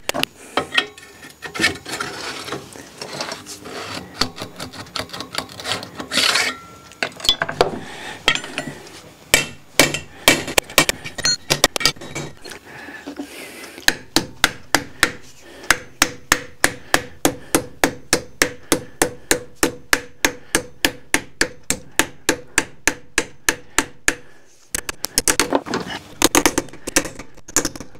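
Hand hammer striking a steel tube on an anvil, to squeeze the tube down towards a 27 mm diameter. Then a fast, even run of light metal taps, about four a second, on a blade held against the tube, with a short break near the end.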